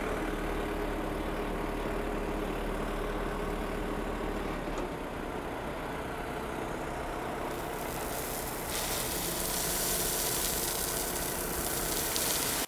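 Yanmar compact tractor's diesel engine running steadily while the front loader works. From about two-thirds of the way in, a loud rushing hiss joins it as the raised bucket tips gravel out.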